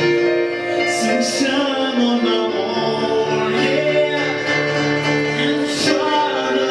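A man singing a slow melody with held notes over instrumental accompaniment.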